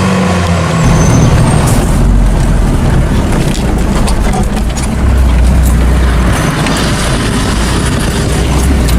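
Heavy diesel farm machinery running hard: a deep, steady engine rumble that swells about a second in and again around five seconds, with scattered knocks and rattles.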